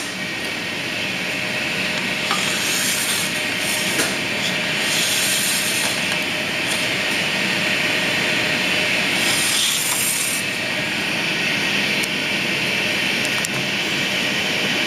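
Restaurant kitchen noise: a steady hiss, with a few faint clicks.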